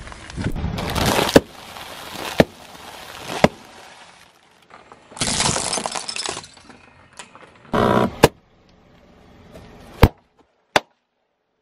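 Car tyre rolling over and crushing small objects: a series of sharp cracks and snaps with stretches of crunching, and a short squeal just before the middle of the second half.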